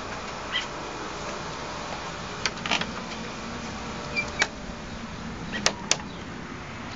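A handful of short, sharp clicks and taps, some in close pairs, over a steady background hiss.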